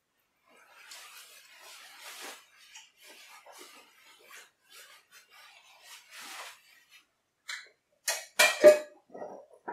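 Paper towel rustling and crumpling in the hands, with chewing. Then, about eight seconds in, a quick run of loud sharp clicks and knocks as a small container is handled on the stone countertop.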